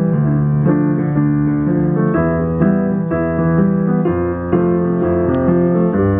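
Yamaha digital keyboard played with a piano sound: a steady run of notes and chords over low bass notes.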